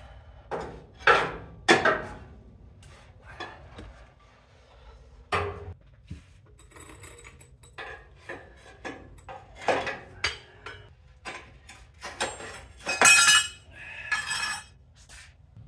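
A dozen or so irregular metal clanks and knocks, some ringing briefly, the loudest cluster near the end: a steel pry bar levered between a 1960 GMC truck's rear axle and a frame bracket. The axle is hung up because the bracket is welded to it.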